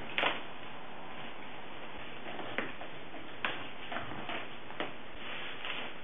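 Joints popping during a chiropractic adjustment: a loud crack right at the start, then a run of softer clicks over the next few seconds, over a steady hiss.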